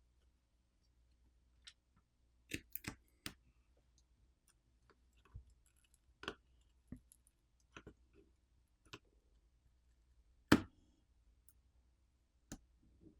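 Scattered light clicks and taps, irregularly spaced, from small repair tools and tablet parts being handled during disassembly. One louder knock comes about ten and a half seconds in.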